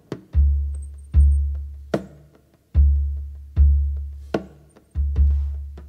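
Background music: deep bass-drum hits that fade slowly, about one a second, with sharp clicking percussion between them.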